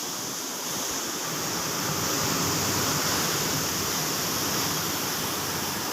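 A steady, even hiss with no pitch or rhythm.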